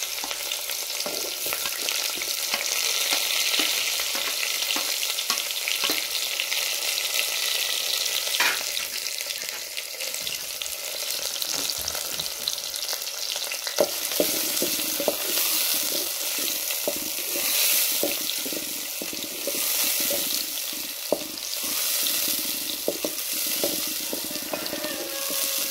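Sliced red onions sizzling and frying in hot cooking oil in an aluminium pot: a dense, steady hiss. From about halfway through, a wooden spoon stirring them adds frequent scrapes and knocks against the pot.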